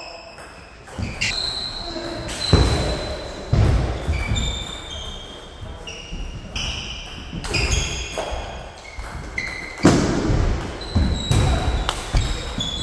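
Table tennis rallies: the plastic ball clicks sharply off the bats and table in quick irregular strings, with short high squeaks of shoes on the court floor between them.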